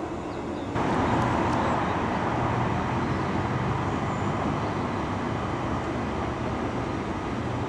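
A London Underground 1992 Stock Central Line train at the platform: a steady mechanical hum under a rushing noise, getting louder about a second in.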